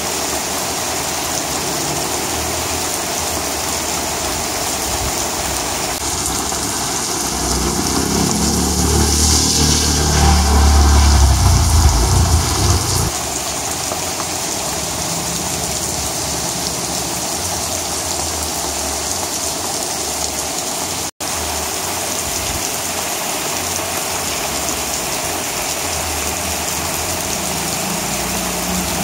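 Heavy rain falling steadily on a wet concrete alley, a constant hiss of drops. About a quarter of the way in, a low rumble swells for several seconds and then fades.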